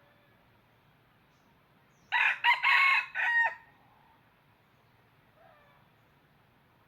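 Red junglefowl cock crowing once, about two seconds in: a short crow of about a second and a half, broken into several notes. A much fainter bird call follows a couple of seconds later.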